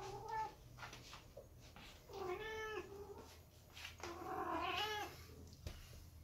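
Silver British shorthair cat meowing three times: a short call at the start, another about two seconds in, and a longer, wavering meow about four seconds in.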